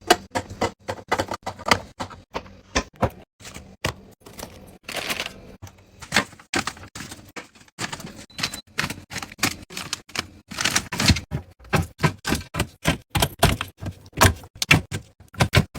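Quick, irregular clicks and clacks of hard objects being handled, a few every second, with two brief rustling stretches about five and eleven seconds in.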